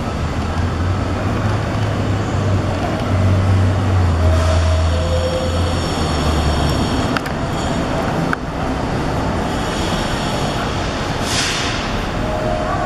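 NYC subway train running on an elevated steel structure, heard over city traffic noise: a low rumble through the first several seconds with a faint high whine in the middle. Two sharp clicks come around the middle, and two short hisses near the end.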